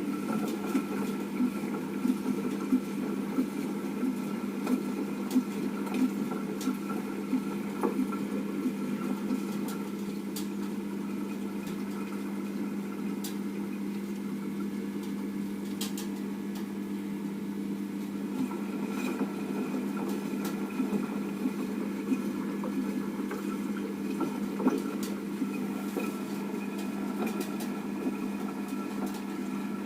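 Washing machine running its cleaning cycle: a steady motor hum, with faint irregular ticks over it. The owner calls the motor the foam motor.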